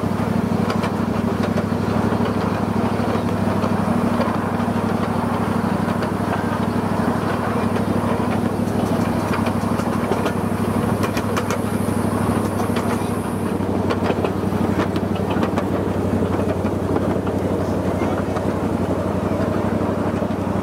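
Miniature railroad train's engine running steadily, a constant low drone, with scattered light clicks and a faint high hiss from about halfway through to two-thirds of the way in.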